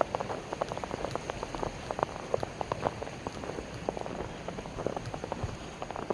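Footsteps crunching in snow: a dense, irregular crackle of packed snow squeaking and breaking under each step.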